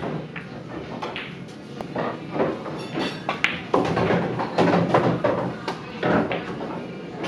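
Bar background music and crowd chatter, with a couple of sharp clicks about two and three and a half seconds in.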